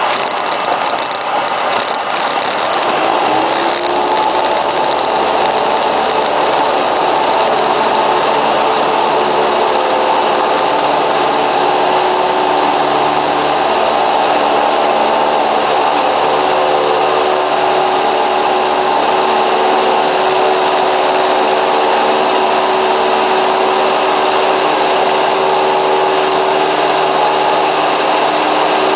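Cessna 172's piston engine and propeller running steadily; the engine note rises slightly about three seconds in, then holds even.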